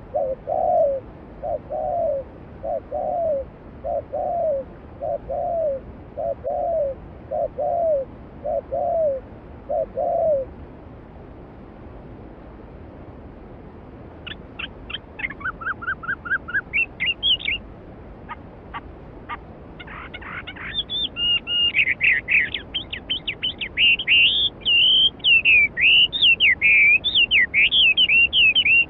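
A bird gives a series of about nine low, evenly spaced hooting calls. After a short gap, a songbird breaks into rapid high twittering song that grows fuller and continuous. A steady rush of flowing stream water runs underneath.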